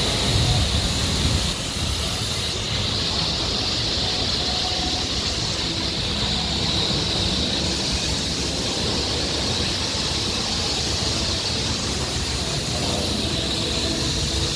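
Steady hiss of a car wash's high-pressure spray wand jetting water onto a car, with a brief low rumble in the first second or so.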